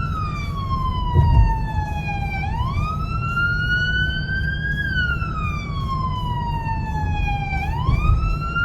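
Emergency siren in a slow wail: the pitch falls slowly for about two and a half seconds, climbs back quickly, then keeps rising more gently before falling again, about five seconds per cycle. A steady low vehicle rumble runs underneath.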